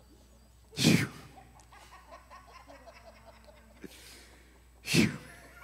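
Two short, loud breath-like blasts about four seconds apart, each dying away quickly, over faint murmuring and laughter from a congregation.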